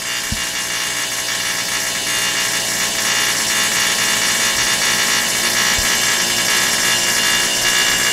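Mr Heater Big Maxx 80,000 BTU gas unit heater starting up: its blower fan runs with a steady electric buzzing from the igniter, growing a little louder about three seconds in.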